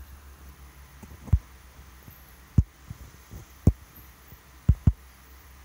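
Fingertip taps on a phone's touchscreen picked up by the phone's microphone: five dull thuds, the last two close together, over a steady low hum.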